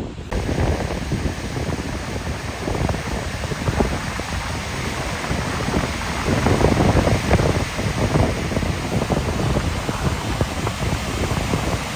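Steady rushing roar of water pouring over the Horseshoe Dam spillway, with gusts of wind buffeting the microphone.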